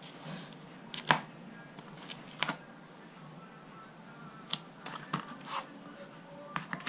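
A handful of short, light scrapes and clicks from hand tools and a steel rule working on the skin of a model glider wing, spaced irregularly with the strongest about a second in and about two and a half seconds in.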